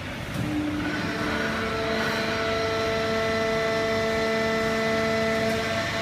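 Horizontal hydraulic waste-paper baler and its feed conveyor running: a steady machine drone carrying several steady whining tones, which settle in about a second in.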